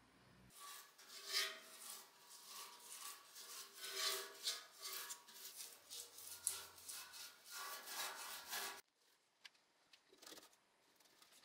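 Repeated rubbing and scraping strokes on the rusty sheet-metal fuel tank of a Pannonia motorcycle, with a faint metallic ring, stopping abruptly about nine seconds in. A few faint clicks follow.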